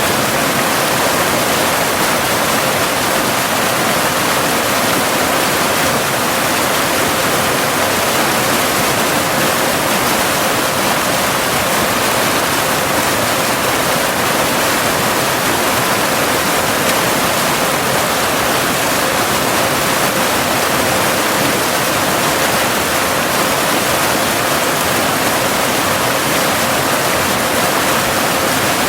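Steady rushing of a cascading waterfall, an even wash of falling water without change, with a faint steady pure tone near 528 Hz mixed in as a binaural delta-wave track.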